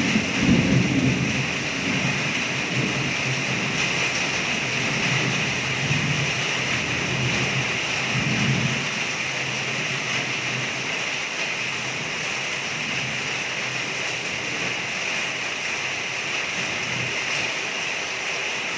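Heavy rain falling on a carport roof and pouring off its edge, a steady hiss. A low rumble comes and goes under it and fades out about nine seconds in.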